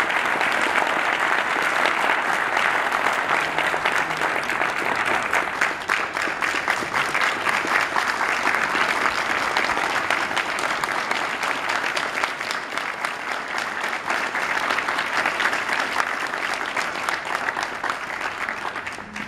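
Audience applauding, many hands clapping together steadily, easing off slightly in the second half.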